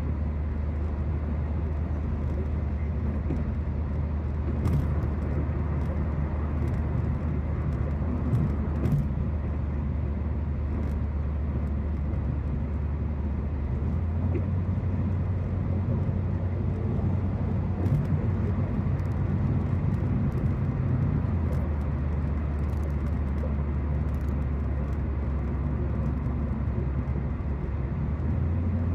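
Steady road noise heard inside a car cruising at highway speed: a low rumble of tyres and engine with a little hiss, its low drone shifting slightly a couple of times, and a few faint ticks.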